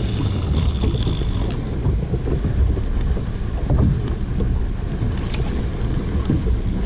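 Wind buffeting the microphone on an open boat at sea, a steady low rumble, with a few sharp clicks along the way.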